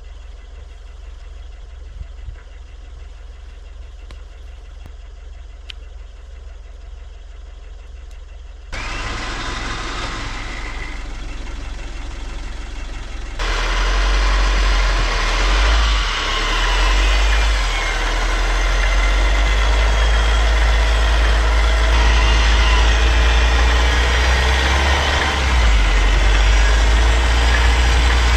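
A vehicle engine running steadily. It is faint at first, then the sound jumps abruptly about 9 seconds in and again about 13 seconds in, becoming much louder and fuller for the rest of the stretch.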